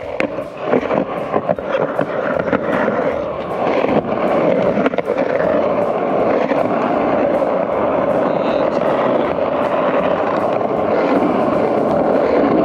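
Skateboard rolling on Powell Peralta Dragon 93a urethane wheels over concrete, a steady rolling rush that evens out after about four seconds. A run of short clicks and knocks sits in the first few seconds.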